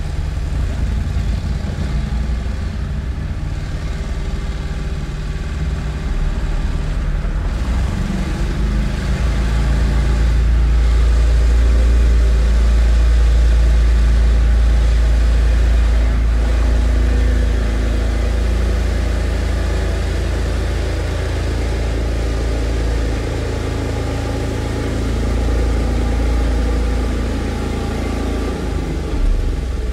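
Construction machinery engine running steadily with a deep, continuous drone, swelling louder for several seconds about a third of the way in and easing back.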